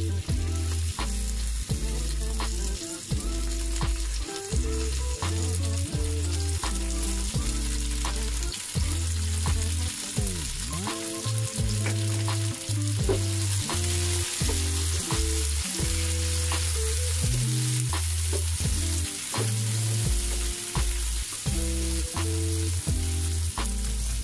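Food sizzling as it is sautéed in a frying pan, with a spatula clicking and scraping against the pan many times. Background music with a low, blocky bass line plays underneath.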